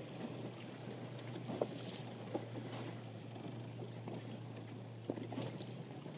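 Water lapping and splashing softly against the hull of a Hobie Adventure Island sailing kayak, with scattered small knocks and a steady low hum underneath.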